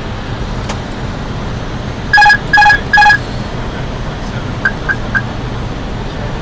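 Airbus A320 flight deck noise on approach: a steady rush and low hum. About two seconds in, three loud electronic beeps sound in quick succession, and a little later three faint short pips.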